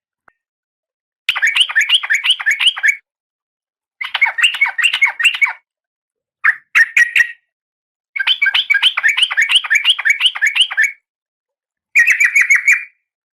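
Female oriental magpie-robin (kacer) calling in breeding condition, a lure call for a male: five bursts of rapid, evenly repeated chattering notes, several a second, with short silences between and a brief two-note burst in the middle.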